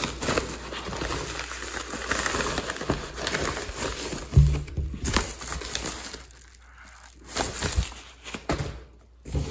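Packaging being unpacked by hand: plastic and paper crinkling and rustling with small clicks. The rustling is dense at first and turns into separate bursts of handling noise later, with one louder knock about four and a half seconds in.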